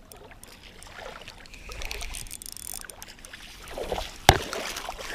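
Water splashing as a hooked flathead thrashes at the surface while it is brought in, with a single sharp knock a little after four seconds in.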